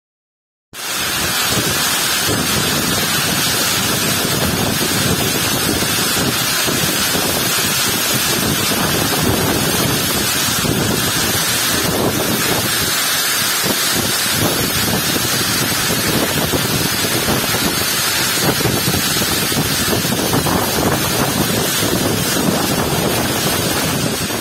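Steady, dense hiss of heavy rain with wind buffeting the microphone. It starts abruptly under a second in.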